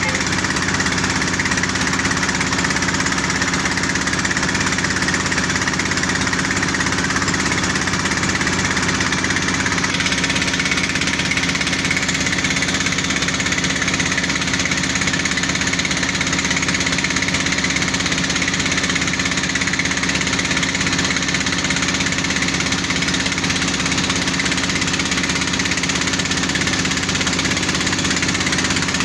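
Engines of a water-well drilling rig and its engine-driven mud pump running steadily while drilling, with a rapid, even beat.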